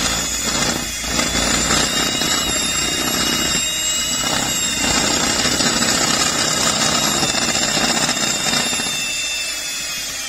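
Electric hand mixer running with a steady high whine, its beaters churning chunks of butter into the biscuit mix in a plastic bowl.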